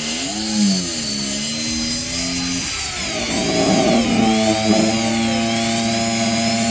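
Small 12-volt DC motor with a brass mini drill chuck running as a hand-held drill, its whine wavering in pitch at first. About three seconds in the bit bites into wood with a rough, scratchy stretch, then the motor settles into a steady whine under load while drilling.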